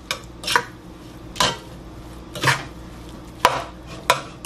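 Metal spoon stirring diced boiled potatoes in a pot, scraping and clinking against the pot's side about six times at an uneven pace.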